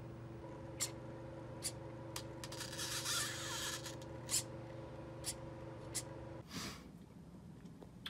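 Animatronic robot head's motors on test: a steady electric hum from the driven brushless neck motor, with several sharp mechanical clicks and a brief whirring rush a few seconds in. The hum cuts off about six and a half seconds in.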